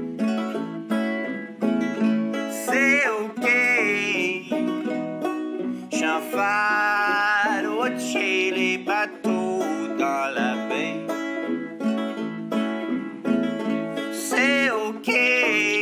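A five-string banjo and an archtop acoustic guitar playing a folk-country tune, with a man singing held, gliding notes over them.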